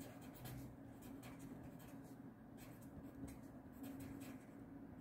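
A pen writing on a sheet of paper: faint, irregular short scratches of the strokes over a low steady hum.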